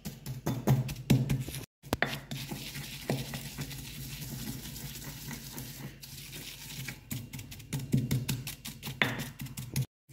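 Wooden pestle pounding and grinding a coarse peanut, chilli and herb mixture in a stone mortar: quick repeated knocks, with a steadier scraping, rubbing stretch in the middle. The sound cuts out briefly just under two seconds in and again just before the end.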